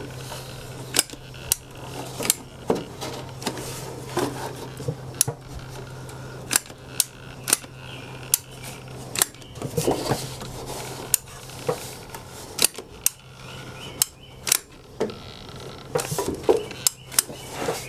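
Manual caulk gun clicking as its trigger is squeezed again and again to push out a bead of sealant: sharp metallic clicks, one or two a second at an uneven pace. A faint low hum runs underneath.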